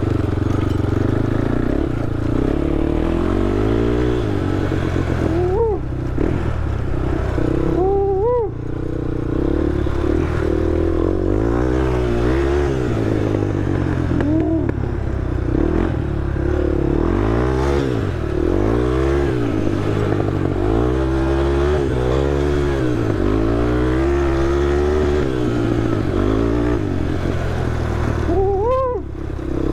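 Honda TRX ATV engine running under constantly changing throttle, its pitch rising and falling again and again, with quick sharp revs about five and eight seconds in and again near the end.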